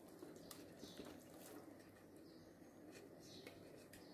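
Near silence: faint room tone with a few soft, brief ticks.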